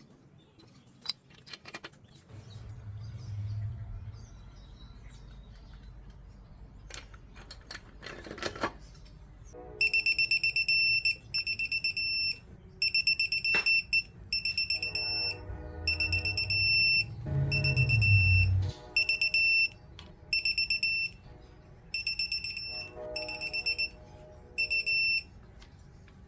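High electronic beeping from a digital torque wrench, repeating in roughly one-second beeps with short gaps for about fifteen seconds as bolts are brought up to the set torque. Before the beeping start there are a few clicks and short low hums.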